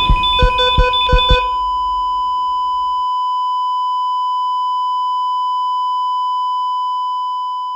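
A steady, high electronic bleep tone held unbroken, the kind used to censor swearing. A music track with a regular drum beat plays under it and cuts off about a second and a half in, leaving the bleep alone.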